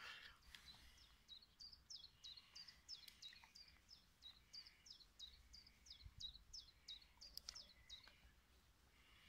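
A small songbird singing faintly: a long run of quick, high, downward-slurred notes repeated about three times a second, starting about a second in and stopping near the end.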